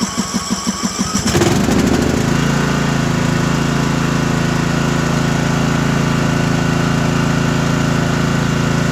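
Columbia 46-inch lawn tractor's engine being cranked by its electric starter with the choke on, in even pulses about five a second, then catching about a second and a half in and settling into steady running.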